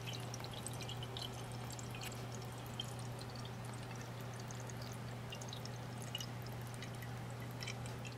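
Water draining in a swirling vortex through a homemade tornado tube from one 2-litre pop bottle into the other, with many small splashing, dripping ticks over a steady low hum.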